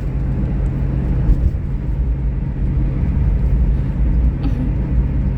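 Steady low rumble of road traffic, with a running vehicle engine's constant drone underneath.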